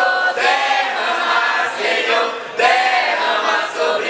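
A crowd of party guests singing a birthday song together in chorus.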